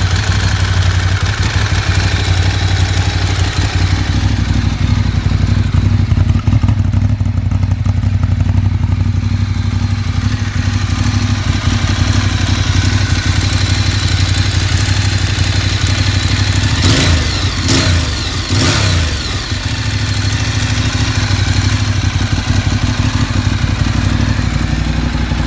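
Ducati 848's 90-degree L-twin engine idling steadily, with two brief changes in the sound about seventeen and nineteen seconds in.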